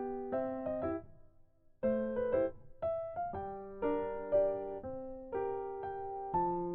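Piano music: chords struck one after another and left to fade, with a short break about a second in.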